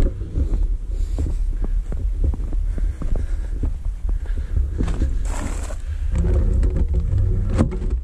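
Handling noise from a small action camera being carried and moved about: a continuous low rumble with many small knocks and scuffs, and a brief rushing noise about five seconds in. It ends with a sharp knock as the camera is set down on the shooting table.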